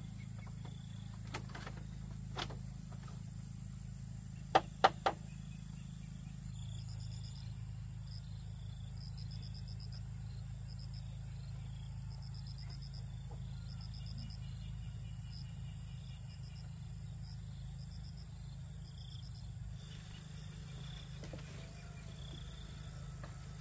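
Insects chirping in short repeated trains over a steady low rumble, with three sharp knocks in quick succession about five seconds in.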